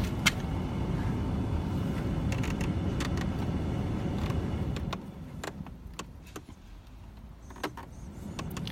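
Peugeot 306 heater blower fan running with a steady low whoosh, cutting out about five seconds in, with several sharp clicks and knocks of handling around the relay box.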